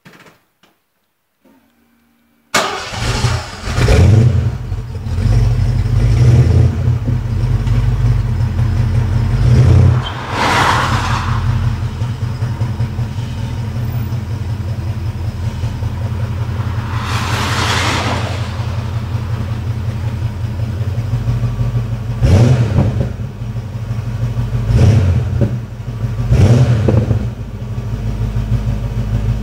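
Ford 5.0 V8 on a stock exhaust, cold-starting after two months standing: a couple of seconds of quiet with faint ticks, then the engine catches suddenly and runs with a low, steady rumble. The revs swell several times before it settles.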